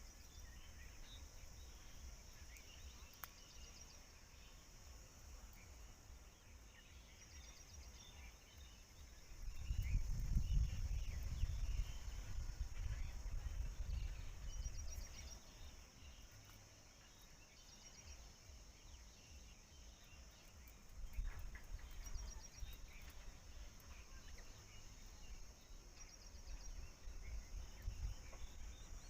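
Faint outdoor ambience: a steady high insect drone with short runs of quick high chirps every few seconds, and wind rumbling on the microphone about ten seconds in and again in the last third.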